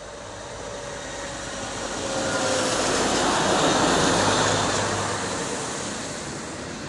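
Matterhorn Gotthard Bahn electric passenger train, led by a red motor baggage car, passing close by: the rumble and rail noise build to their loudest about four seconds in as the front passes, then ease off as the coaches roll past. A faint whine falling in pitch is heard over the first two seconds or so.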